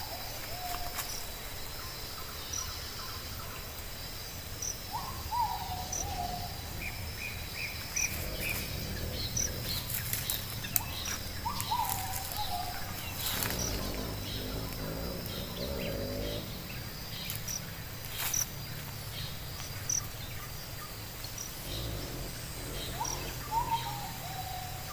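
Tropical forest ambience. A bird gives a short falling call three times, with a steady high insect trill behind it and a brief run of higher chirps about eight seconds in.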